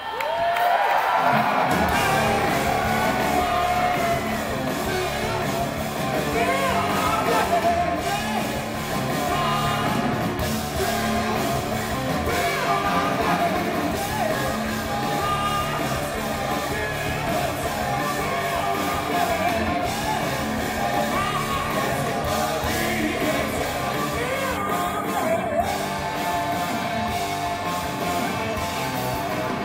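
Hard rock band playing live: a singer's voice over electric guitar and a full band, heard from the crowd in a large hall.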